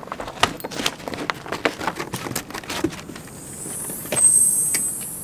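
A dog's paws crunching on crusted snow, with small jingles like collar tags, as it walks up to the camera and past it. About four seconds in, a louder rushing hiss with a thin high tone takes over.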